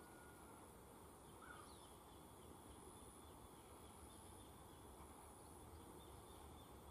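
Near silence: faint rural outdoor ambience with a steady high insect buzz and one short bird chirp about one and a half seconds in.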